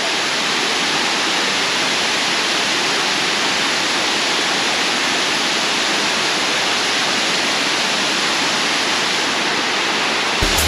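Steady rush of a tall waterfall and the shallow stream with small rapids below it, an even hiss of falling and running water.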